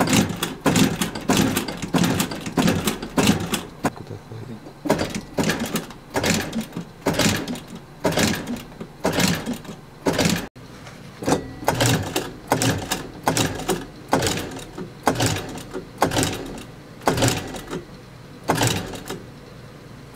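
Heavy-duty industrial leather sewing machine stitching in short, uneven runs, a sharp clack with each stroke of the needle. There is an abrupt cut about halfway through, after which the stitching clatter carries on.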